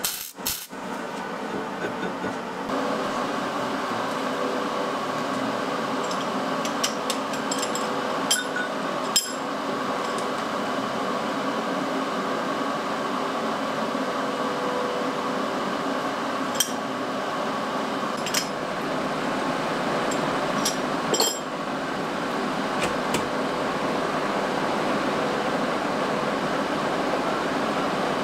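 Metal lathe running with a steady hum, turning down weld built up on a shaft, with a few sharp metallic clinks now and then. It opens with a brief crackle of MIG welding.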